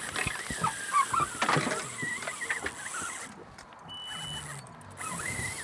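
Fishing reel drag squealing and clicking in uneven spurts as a hooked tarpon pulls line, quieter in the last couple of seconds.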